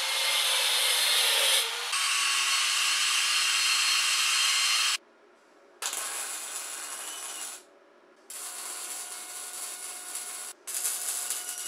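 Angle grinder cutting steel flat bar for about five seconds, its pitch dropping as it bites. This is followed by MIG welding in three crackling bursts of a second or two each, with short pauses between.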